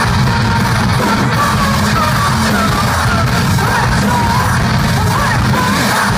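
A rock band playing loud live music, with a voice yelling and singing over it.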